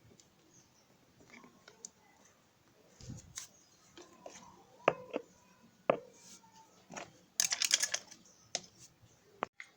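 Clicks and taps of small hard parts being handled, a few of the taps ringing briefly, with a quick rattling run of clicks about seven and a half seconds in.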